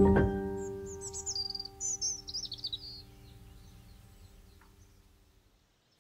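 The final chord of a classical piece rings out and fades away, while a bird chirps and trills in quick high bursts over it for the first few seconds.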